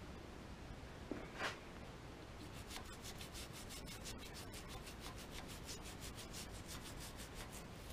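Quick rubbing strokes on a machine part, several a second, starting a couple of seconds in, like scrubbing or wiping grime off during cleaning.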